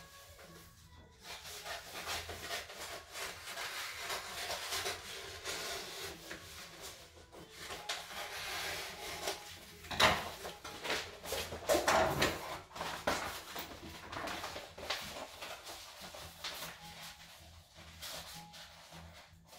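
Roll of self-adhesive contact paper being unrolled, handled and rubbed flat on a kitchen countertop: irregular paper rustling and crinkling, louder about ten and twelve seconds in.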